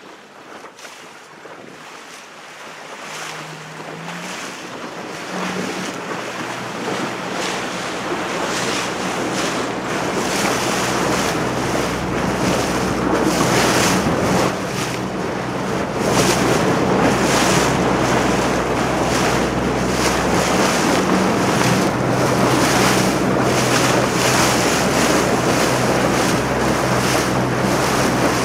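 Wind buffeting the microphone and water rushing past a moving boat, growing louder over about the first ten seconds and then holding steady. A low steady hum runs underneath, entering a few seconds in with a short rise in pitch.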